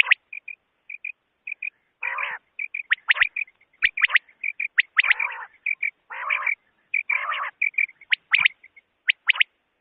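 Quail (bater) calling, a lure recording for hunting: rapid sharp whistled notes in twos and threes, mixed with a few short, harsh rasping calls.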